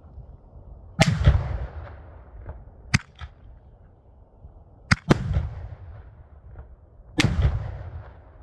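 Six-inch canister shell fireworks firing outdoors: three big sharp bangs, about a second in, near the middle and near the end, each trailing off in a long rolling rumble. Lighter sharp cracks fall between them.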